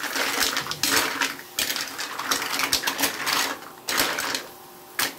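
Green mussels in their shells clattering against each other and the metal wok as they are stirred with a metal spatula: a rapid, irregular rattle of shell and metal that dies down about four seconds in.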